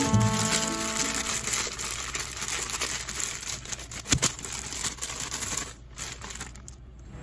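Zip-top plastic bag crinkling and crackling irregularly as hands knead and squeeze the chopped food inside it.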